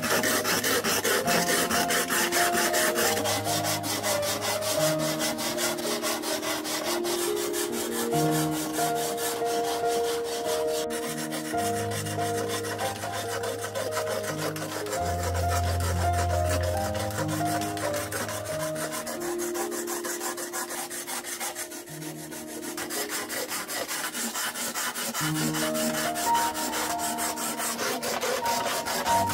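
Rapid, evenly repeated rasping strokes under background music with a stepping melody and bass line. The music thins out past the middle and comes back near the end.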